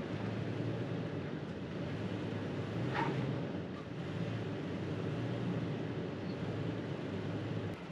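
Toyota Tacoma driving off-road: a steady low engine and road rumble, with a brief high-pitched squeak about three seconds in.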